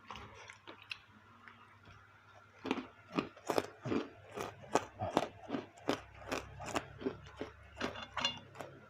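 Close-miked chewing of baso aci, tapioca meatballs with cartilage, crunching in a steady rhythm of about two chews a second that begins a few seconds in.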